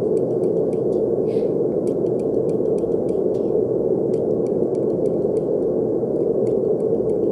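Brown noise: a steady, deep hiss at an even level, with faint, irregular clicks scattered above it.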